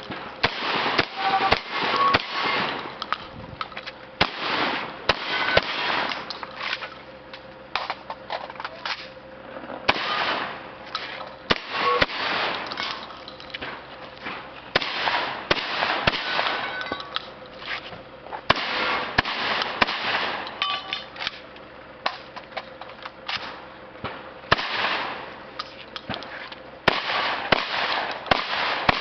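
Shotgun fired repeatedly during a practical shooting stage run: many sharp shots in quick strings, broken by short pauses.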